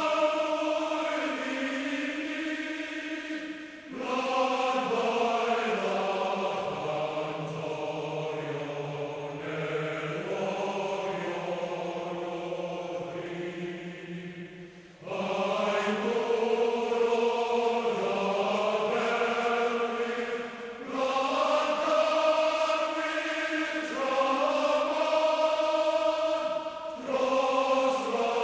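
Slow choral music: voices sing long held notes in phrases several seconds long, with brief pauses between phrases.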